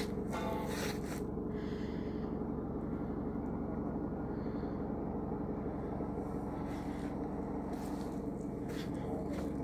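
A steady low hum and rumble, with a few brief soft clicks near the start and again near the end.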